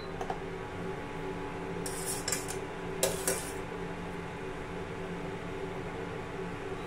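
Steel spoon stirring milk tea in a stainless steel saucepan, scraping and clinking against the pan a few times about two and three seconds in, over a steady hum.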